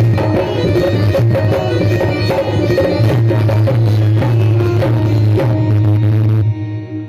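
Loud live music on keyboard with tabla-style drumming and a steady bass note, stopping abruptly about six and a half seconds in and leaving a short ringing tail.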